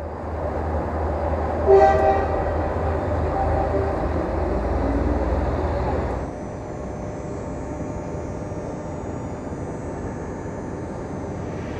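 Train station ambience: a train's deep, steady rumble with a loud horn blast of several tones about two seconds in. The rumble cuts off abruptly about six seconds in, leaving a quieter steady station background with faint high steady tones.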